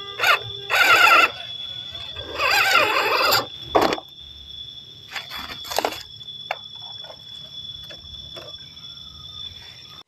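Small electric motors and gearboxes of 1/12-scale RC crawlers whining in short bursts of throttle, once about a second in and again from about two and a half to three and a half seconds, followed by a few sharp clicks. A steady high-pitched whine runs underneath.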